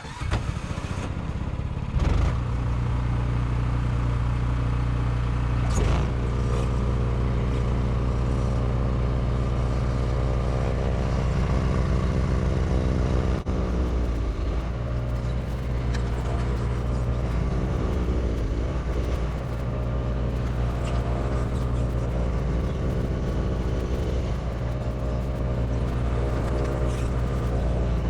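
An engine running steadily, its pitch dipping briefly three times as the load or speed changes.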